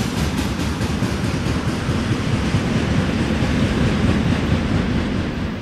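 Freight train of tank cars rolling away along the track just after its last car has passed: a steady rumble of wheels on rails, with faint clicks of wheels over rail joints that fade in the first second.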